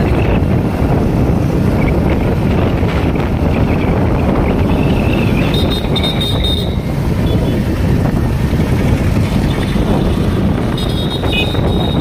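Wind buffeting the microphone over the steady running of a motorcycle engine and tyre noise while riding.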